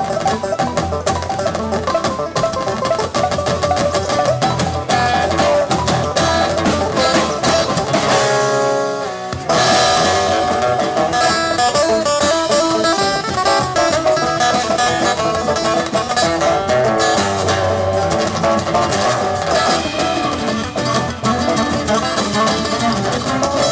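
Live bluegrass-style instrumental on acoustic guitar, mandolin, banjo, upright bass and drum kit. About eight seconds in the band drops out for a second and a half, leaving one held note, then comes back in all together.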